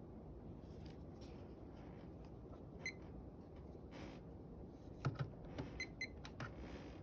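Emerson Veranda ceiling fan (42-inch CF542) running, a steady soft rush of moving air with the motor itself pretty much silent. Scattered light clicks come through, one about three seconds in and a cluster later on.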